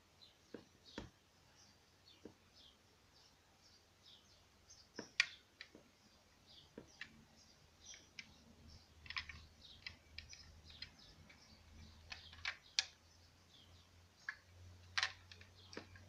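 Faint scattered clicks and taps from fingers handling a small diecast model car. The loudest click comes about five seconds in, and a cluster follows later.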